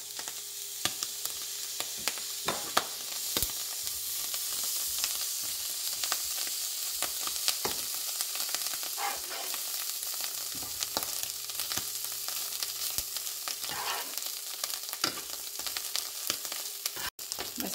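Canned mackerel and greens sizzling in a frying pan while a metal spoon stirs, scraping and clicking against the pan. The sound cuts out briefly near the end.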